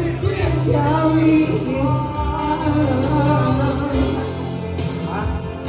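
Karaoke: a man singing into a microphone over a backing track with a steady bass beat and cymbals, played through PA speakers.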